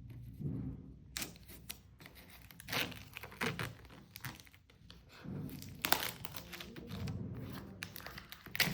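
Camera box packaging being handled and opened: irregular crinkling and tearing with a few light knocks.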